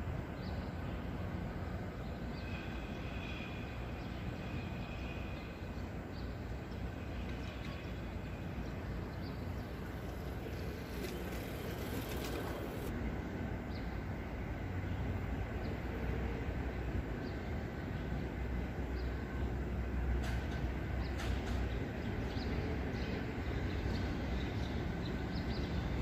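Steady low background rumble that grows slightly louder in the second half, with a few faint, short, high bird notes a few seconds in.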